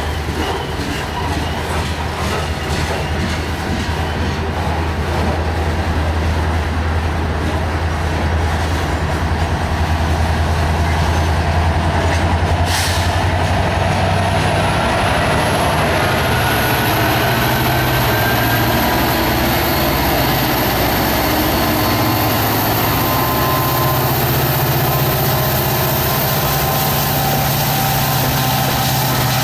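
Freight train hopper cars rolling past with steady wheel-and-rail noise, then a mid-train EMD SD70ACe distributed-power diesel locomotive passes while throttling up toward full power (notch 8). Its turbocharged two-stroke V16 engine note climbs and a high whine rises from about halfway through.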